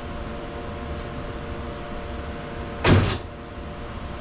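A single loud, short thump about three seconds in, over a steady background hum.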